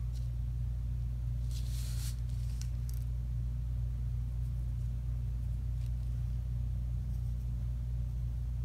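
Steady low electrical hum, with a brief rustle of a paper envelope being slid and turned on a desk about one and a half seconds in and a short second rustle soon after.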